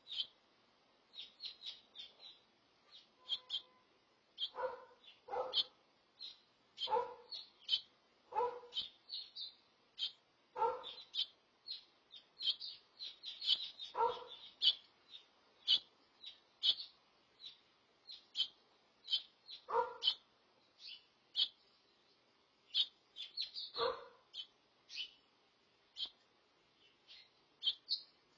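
House finch chirping: many short, high chirps in quick runs. Louder, lower calls break in every few seconds, eight times in all.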